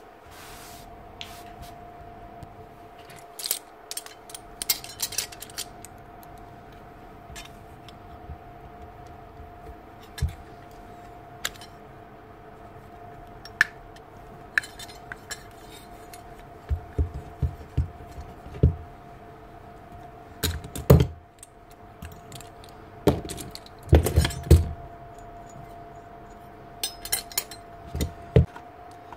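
Metal tools and small steel parts clinking and knocking on a workbench during a bearing change on a power-planer armature, with a run of heavier knocks in the second half. A steady faint hum sits underneath.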